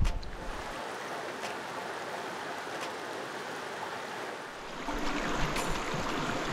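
Small mountain stream running steadily, an even rush of water; a little louder with some low rumble from about five seconds in.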